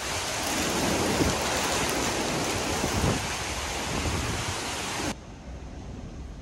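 Hurricane-force wind and driving rain: a steady, loud rushing with small gusts. About five seconds in it drops suddenly to a much quieter, duller rush.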